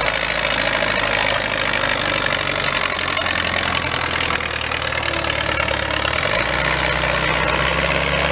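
Antique farm tractor's engine running steadily under load as it drags a weight-transfer sled, with its note changing about six seconds in.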